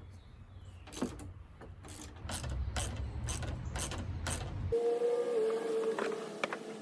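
Ratchet wrench clicking in an even run of about three clicks a second while turning a bolt. About two-thirds through the sound changes abruptly to a steady mid-pitched whine.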